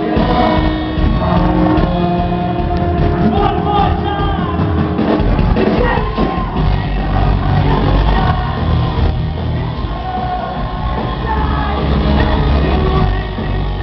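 Rock band playing live, with a lead singer and heavy drums and bass, heard from among the audience in a large hall, with shouts from the crowd. The drums and bass come in strongly right at the start.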